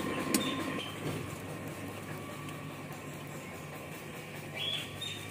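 Steady low hum of a running motor, with a short click just after the start and bird chirps near the end.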